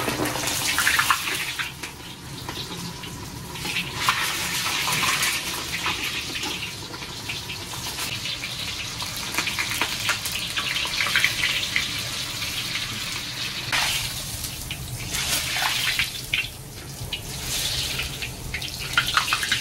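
Carrot and a whole onion frying in hot linseed and sunflower oil in a kazan: a dense sizzle with fine crackling that swells and eases. The vegetables are fried to take the excess smell out of the oil.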